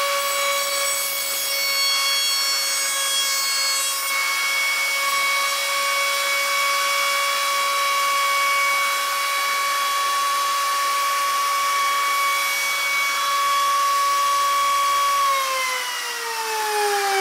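Handheld wood router mounted under a router table, running with a steady high whine while a board is fed over the bit on a finishing pass, cutting a groove with a rough, hissing wood-cutting noise. About fifteen seconds in the whine starts to fall steadily in pitch as the motor winds down.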